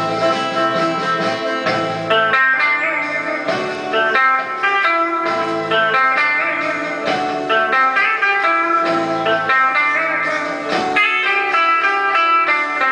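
Electric guitar played through a small Marshall combo amp: a continuous run of changing notes, some of them sliding in pitch.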